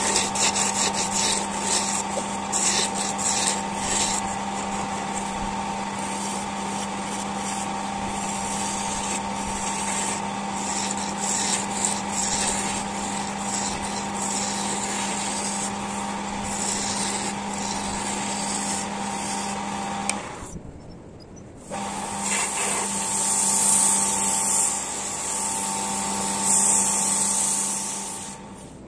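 Wood lathe running with a steady motor hum while the spinning wooden blank is sanded by hand, a continuous hiss of abrasive rubbing on the turning wood. About twenty seconds in, the sound drops away for about a second, then resumes with a stronger hiss.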